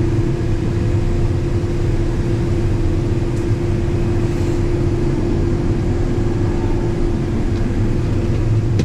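Combine harvester running steadily while harvesting corn: a constant low engine and machinery drone with a steady hum over it.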